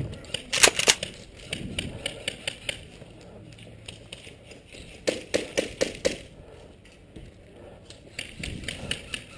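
Airsoft guns firing in short strings of sharp, rapid pops, several quick shots a second, in a few separate volleys with pauses between.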